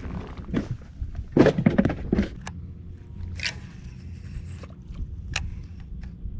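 Knocks, clicks and scrapes of handling on a small boat as a caught bass goes into the cooler and the baitcasting rod and reel are picked up, the loudest knocks about one and a half to two seconds in. A steady low hum runs underneath.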